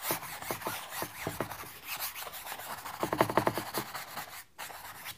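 Large stiff hog-bristle brush scrubbing thin, turps-diluted oil paint onto a stretched canvas in rapid back-and-forth strokes, a dry, rasping brushing. The strokes come thickest about three seconds in and stop about four and a half seconds in.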